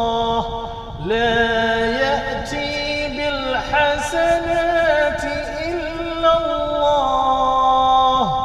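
A man chanting an Arabic ruqyah supplication in long, drawn-out melodic notes, with a short break for breath about a second in.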